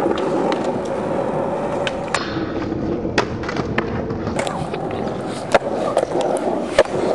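Skateboard wheels rolling fast over rough pavement: a steady rumble broken by sharp clicks and knocks every second or so.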